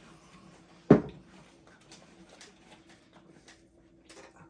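A single sharp thump about a second in, followed by faint scattered ticks and rustling over a low steady hum.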